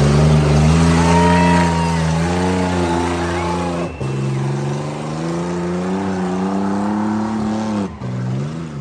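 Tough truck's engine running at heavy throttle, its pitch climbing slowly. There is a brief dip about four seconds in, then the pitch falls sharply near the end as the throttle is let off, followed by a short rev.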